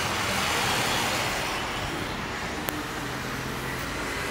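Steady road traffic noise from a busy street below: cars, buses and motorbikes running and passing.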